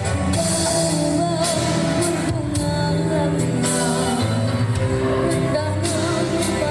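Live music: a voice singing a melody over instrumental accompaniment.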